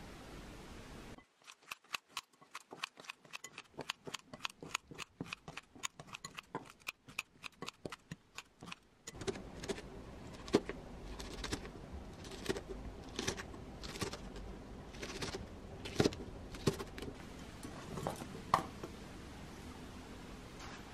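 Food being cut in the kitchen: a fast, even run of crisp cutting clicks, about five a second, for several seconds. Then a knife slices a green chilli on a plastic cutting board, with sharper knocks coming about once a second.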